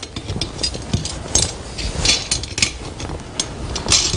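Small metal hardware clinking and tapping irregularly: bolts, washers, lock washers and nuts being handled and fitted by hand to the metal frame of a clay-target trap.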